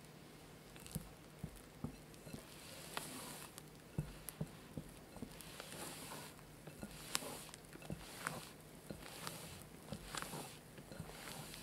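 Silicone spatula folding stiff meringue into egg-yolk cake batter in a glass bowl: soft wet swishes and squelches, with small clicks of the spatula against the glass, about once a second.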